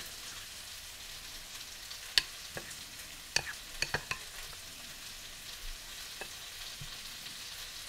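A metal spoon scraping and clinking against bowls as thick tzatziki is spooned from one bowl into another, with a few sharp clinks between about two and four seconds in and one more near six seconds, over a steady low hiss.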